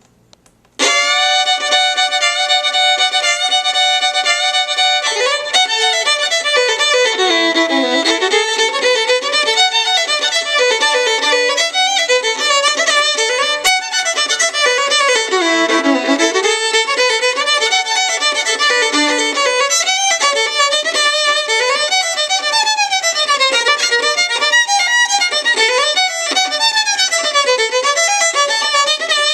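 A Guarneri-model violin played solo. About a second in it opens with a long held bowed note, then goes into fast runs of notes sweeping up and down.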